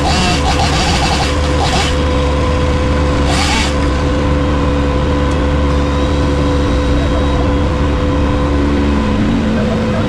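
Heavy-equipment diesel engine running steadily under load, with two short hisses in the first few seconds.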